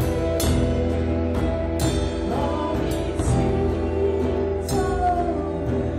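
Live worship music: a drum kit with irregular cymbal crashes over held, sustained chords, with a voice singing in places.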